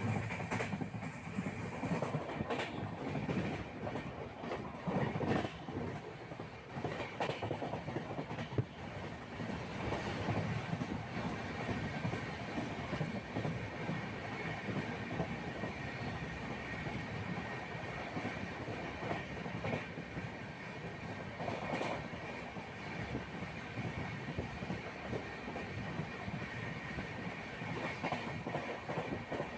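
Steady mechanical rumbling with irregular clattering knocks and a faint high ringing tone throughout.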